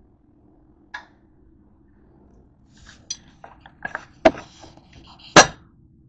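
Dishes and utensils clinking and knocking: one click about a second in, then a flurry of clinks and knocks, the two loudest a little after 4 s and just past 5 s.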